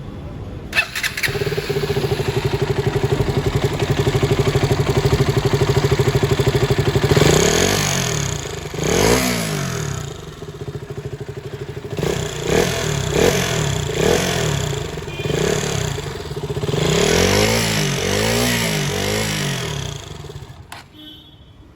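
KTM Duke 200's single-cylinder engine started, idling steadily, then revved several times in short rises and falls before dropping away near the end. The owner complains the bike has been making an irritating noise.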